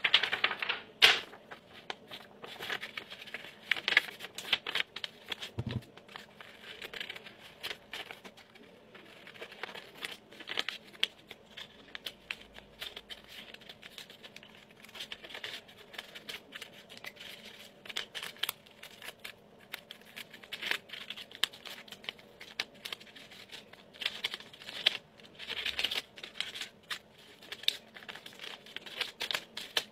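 A sheet of white paper being folded and crinkled, then cut with small scissors, heard as many short snips and paper rustles, loudest in the first couple of seconds.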